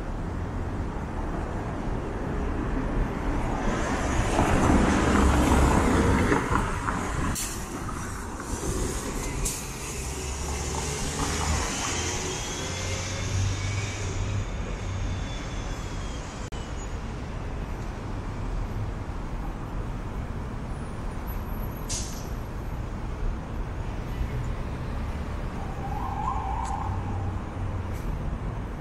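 Street traffic at a city intersection. A vehicle passes close by, loudest about five seconds in, then the low rumble of traffic goes on steadily.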